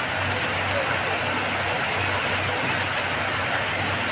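Steady rushing and splashing of a large fountain's water jets falling into its basin.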